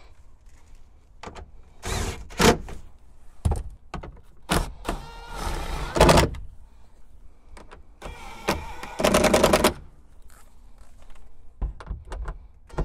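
Irregular knocks, clunks and rattles of a T40 Torx driver and bolt hardware as a Jeep Wrangler hardtop is fastened down. A quick run of rapid clicks comes about nine seconds in.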